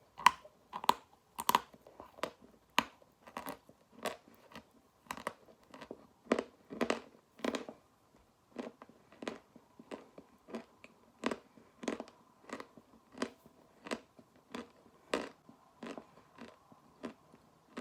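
Khrapovsky chalk being bitten and chewed: a steady run of crisp crunches, roughly one every half second to second.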